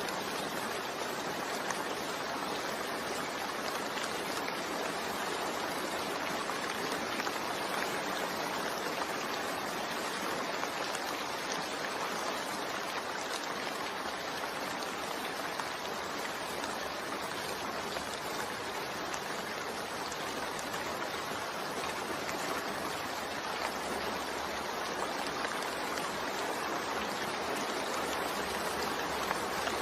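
Steady rain falling, a dense, even hiss with faint scattered drop ticks.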